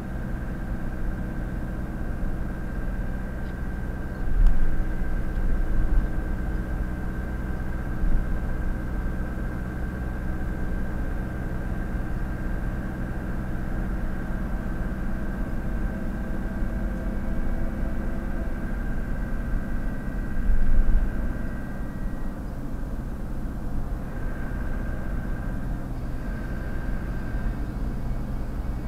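Car driving at motorway speed, heard from inside the cabin: a steady low drone of engine and tyre noise with a thin high steady tone above it. The low rumble swells louder twice, about four to six seconds in and again around twenty-one seconds.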